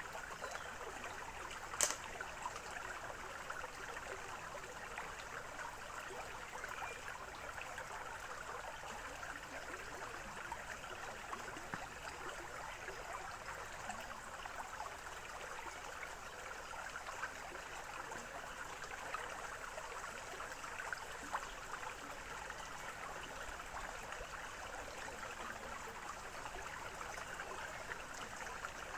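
Small forest stream running and trickling, a steady even water sound. One sharp click about two seconds in.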